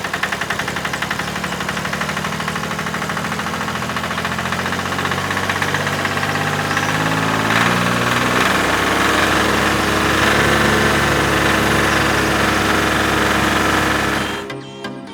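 Small engine of a miniature DIY tractor running with a rapid, even beat, its pitch shifting and growing louder toward the middle. It cuts off suddenly near the end.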